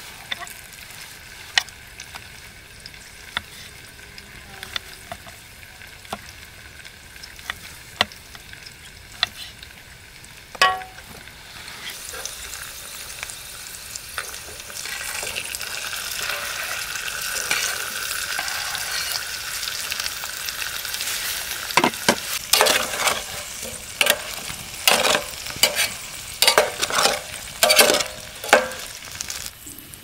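A knife taps lightly on a wooden cutting board now and then, with a single louder knock about ten seconds in. Then food frying in oil in a small camping pan sizzles, building over a few seconds into a steady hiss. In the last third a spatula stirs and scrapes the pan in quick strokes over the sizzle.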